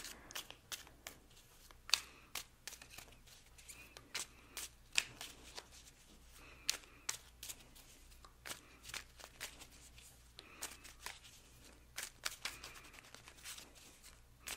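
Small oracle cards being shuffled by hand: a faint, irregular run of short card clicks and slides.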